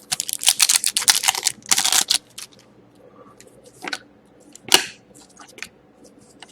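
A foil trading-card pack being torn open, a crinkly rustle for about two seconds. Then cards are handled quietly, with two sharp taps about four and five seconds in.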